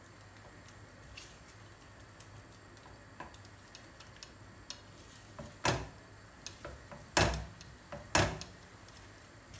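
A spatula stirring eggs and zucchini in a frying pan: scattered light clicks, then three loud knocks against the pan in the second half.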